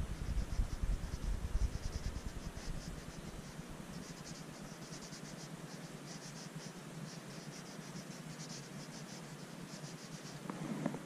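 Conté crayon scratching on drawing paper in short runs of quick back-and-forth strokes, several a second. A low rumble under it fades out about three seconds in.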